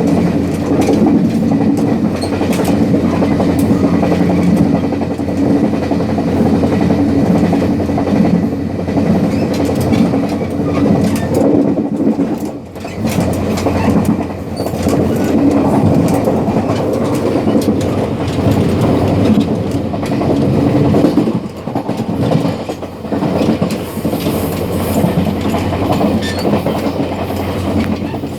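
Running rumble and wheel-on-rail clatter heard at the gangway between cars of a DR3100-series diesel multiple unit in motion, with a steady low drone under it. The noise eases briefly twice, about twelve and twenty-one seconds in.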